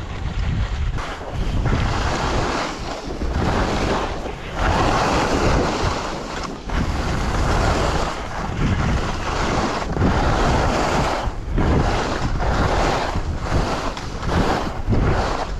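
Wind rushing over the microphone and skis hissing through snow during a downhill ski run, the noise surging and easing every second or two.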